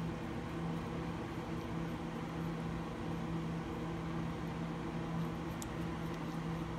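Steady mechanical hum with a constant low tone and fainter overtones, unchanging throughout.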